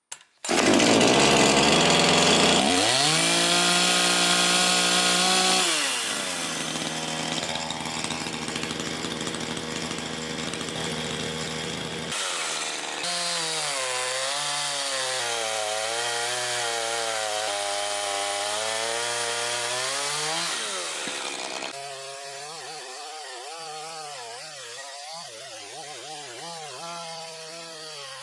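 Makita DCS5121 50 cc gasoline chainsaw running. It revs up a few seconds in and then settles lower, and through much of the rest its engine speed wavers up and down repeatedly.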